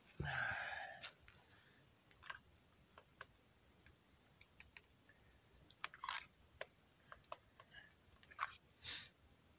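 Quiet handling of a steel camp mug and small gear: a short rustle at the start, then scattered light clicks and taps, with a few louder ones near the end.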